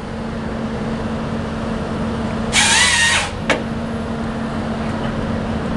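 Caterpillar 320D excavator's diesel engine and hydraulics running steadily, working a Ponsse H7 harvester head with no load on it. About two and a half seconds in, a loud high hydraulic whine lasts under a second, followed by a sharp click.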